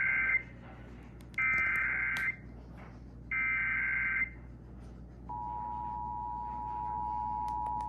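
Emergency Alert System SAME data tones: three bursts of warbling two-pitch digital data, about a second each with a second's gap, the first already under way. About five seconds in, the steady two-tone EAS attention signal (853 and 960 Hz together) begins, the header-and-attention-tone sequence that opens an EAS alert.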